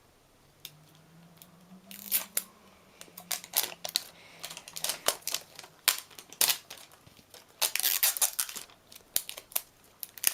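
Toy packaging being handled and torn open by hand: irregular crinkles, rips and sharp clicks, starting about two seconds in and growing busier.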